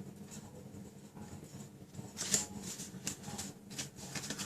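Card and paper being handled and shifted into place: light rustling and small taps, with the loudest rustle a little past halfway.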